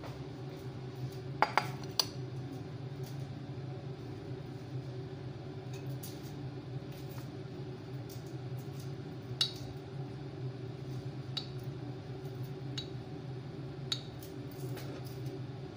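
Kitchen clatter: a few sharp clinks of dishes and cooking utensils, two close together about a second and a half in, then single ones every couple of seconds, over a steady low hum.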